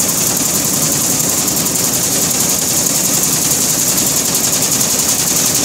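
Peanut chopping machine running steadily, a continuous mechanical drone with a fast, even rattle.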